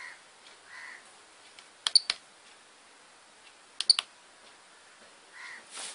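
Push buttons on an Avionic RCB7X radio-control transmitter being pressed to step through its menus: two quick groups of sharp clicks, about two seconds apart.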